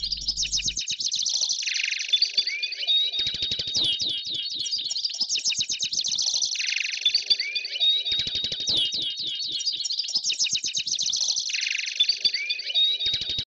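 Looped intro soundtrack of rapid, high, bird-like chirping. The pattern repeats about every five seconds, with a fast ticking beat underneath in places.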